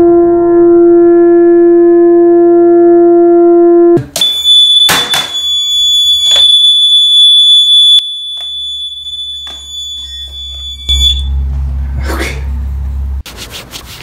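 Watchdog water alarm sounding a loud, steady high-pitched electronic tone, set off by water across its sensor probe; it starts about four seconds in and cuts off about eleven seconds in, with a few bumps from handling. Before it, a lower steady tone sounds and stops abruptly.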